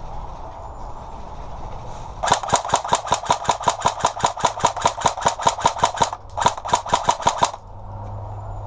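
Airsoft gun firing a rapid, even string of shots, about seven a second, starting about two seconds in and running for roughly four seconds. After a brief pause a second, shorter string follows.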